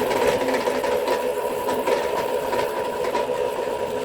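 Electric motor of a homemade wire winder running under load as it winds heavy 2/0 copper cable, with a steady whine and scattered clicks and rattles.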